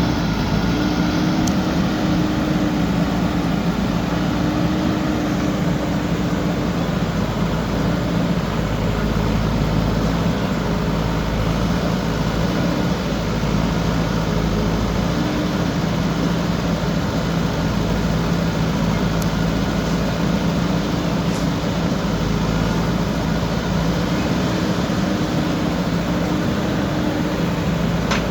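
JCB backhoe loader's diesel engine running steadily under working load, with a higher note that rises in and fades out a few times as the machine works.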